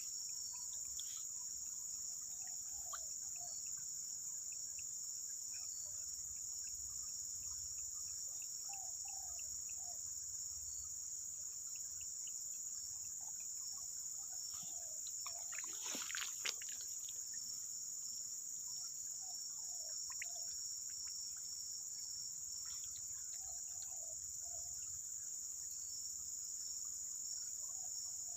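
Steady high-pitched insect chorus of crickets droning without a break, with faint short chirping calls every few seconds from another animal. About sixteen seconds in there is a brief rustle of clicks.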